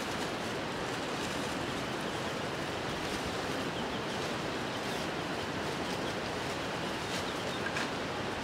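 Steady rushing outdoor noise, even and unbroken, with a few faint light knocks.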